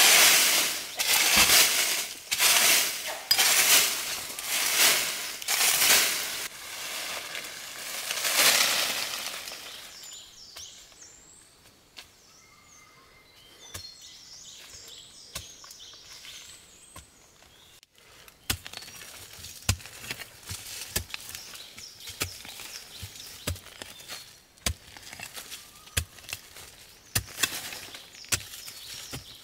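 A long-handled hoe scraping and chopping through dry leaves and soil in quick, even strokes, a little more than one a second. Partway through it goes quieter, and later comes a scattered run of sharp knocks and taps.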